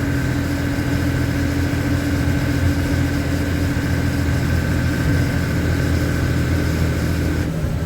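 LMTV military truck's diesel engine running steadily under way, heard from inside the cab, with a steady whine over the low engine drone; the note changes shortly before the end.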